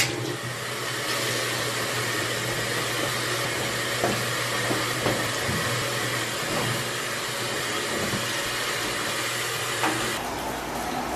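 Top-loading washing machine filling with water: a steady rush with a low hum, while clothes are dropped into the drum with a few soft knocks. The lid shuts with a thud near the end, followed by about a second of shower spray.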